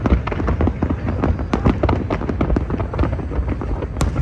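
Large fireworks display: a rapid, unbroken string of bangs and crackles, several a second, over a continuous low rumble.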